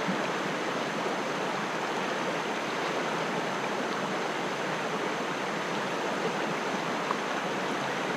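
Fast river water rushing steadily over rapids, a constant even rush.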